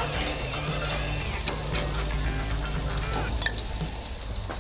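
Honey-glazed zucchini halves and white asparagus sizzling steadily on the hot grate of a gas grill, with a short click of metal tongs about three and a half seconds in.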